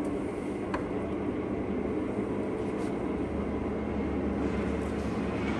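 LeBlond sliding-bed engine lathe running under power, its spindle and headstock gearing turning with a steady mechanical hum and one faint click about a second in.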